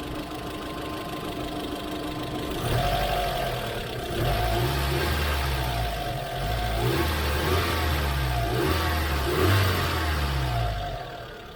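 Great Wall Hover H3 engine running with a steady whistle from the drive-belt roller (pulley) for the first few seconds. The engine then gets louder for most of the rest, its pitch rising and falling repeatedly, before settling down near the end.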